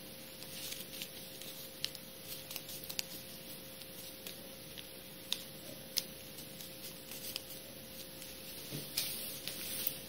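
A sheet of paper being folded and creased by hand into an origami flapping bird: soft rustling with scattered sharp crinkles and taps, the loudest a little before 2 s, at 3 s, around 6 s and around 9 s. A faint steady hum runs underneath.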